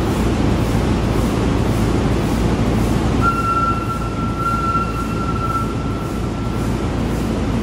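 B&W 2000 eight-cylinder double-acting two-stroke diesel engine running steadily: a deep, even rumble with a regular beat of about two a second. In the middle, a steady high whistling tone sounds for about three and a half seconds over it.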